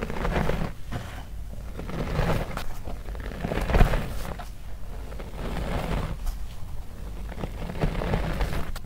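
A clump of reformed gym chalk mixed with cornstarch and baking soda squeezed and crumbled by hand: squeaky crunching in repeated bursts every second or so, the loudest about four seconds in.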